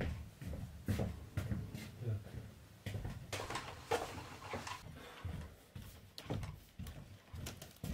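Footsteps and scattered knocks and thuds of a person moving about a small room, uneven and irregular.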